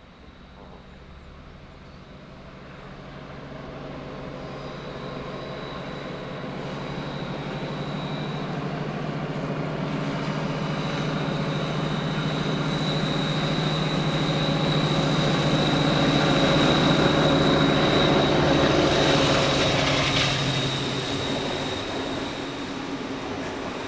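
V200 twin-engine diesel-hydraulic locomotive hauling a passenger train past, its engines' drone and a high whine rising steadily as it approaches. The sound is loudest a little before 20 seconds in, then the engine note drops away and the coaches roll past on the rails.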